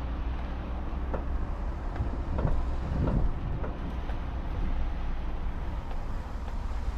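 A 4x4 vehicle driving: a steady low engine and road rumble, with a few knocks and bumps about halfway through.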